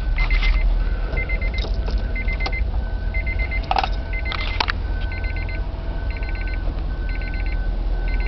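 A car's electronic warning chime repeating a little faster than once a second, over a steady deep low rumble.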